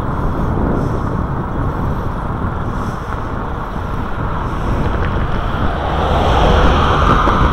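Wind rushing over the microphone of a camera riding along a road, with a steady rumbling hiss. Near the end a louder hiss swells up.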